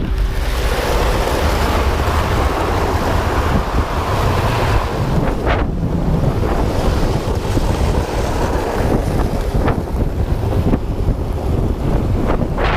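Heavy wind buffeting the microphone while moving fast over snow: a loud, continuous rushing with a few brief sharper swishes.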